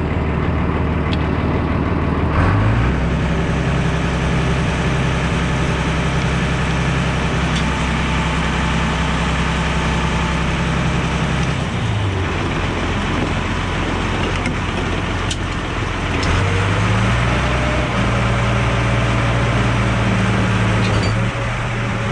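Tractor engine running under load, revving up about two seconds in, dropping back to a lower speed around twelve seconds, and revving up again a few seconds later.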